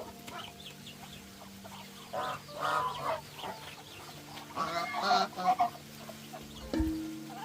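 Geese honking in two loud bouts of harsh, repeated calls. A single low thump comes near the end.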